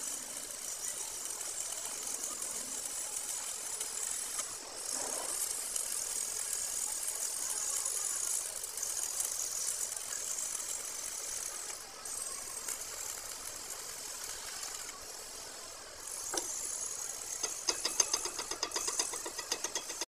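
Steady crackling hiss of a stick (manual metal arc) welding arc laying weld onto a steel excavator track roller shaft. Near the end the arc stops and a rapid run of sharp metal taps follows, about four or five a second: slag being chipped off the fresh weld.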